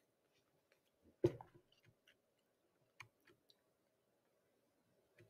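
Clicks of a computer mouse: one sharp click about a second in, then a fainter one about three seconds in and a few faint ticks, over a faint steady hum.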